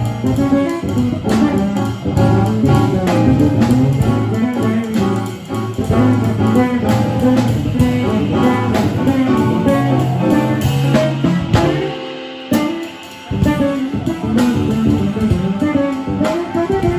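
Live jazz-blues band playing an instrumental passage with no vocals: drum kit with cymbals under keyboard and plucked-string lines. The band drops out briefly about twelve seconds in, then comes back in together.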